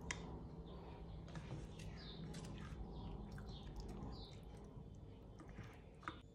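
Faint background bird chirping: a run of short high chirps, roughly two a second, with a few light clicks among them.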